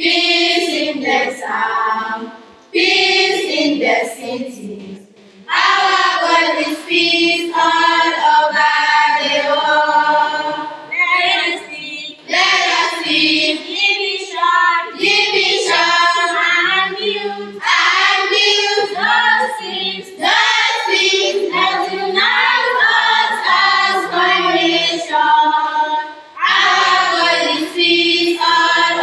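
A group of schoolgirls singing together as a choir, a song in long held phrases broken by short pauses for breath.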